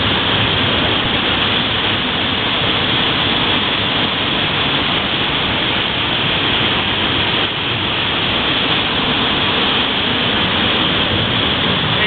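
Waterfall pouring down right over and around the microphone, heard from behind the falling curtain of water: a loud, steady rush of water.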